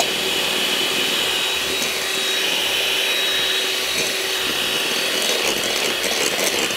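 Electric hand mixer running at a steady speed with a constant whine, its beaters whisking egg, oil and sugar cake batter in a glass bowl.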